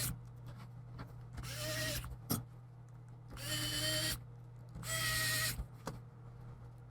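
Small electric screwdriver driving screws into a laptop's plastic lid casing in three short runs of motor whine, about a second and a half apart, with a sharp click between the first and second.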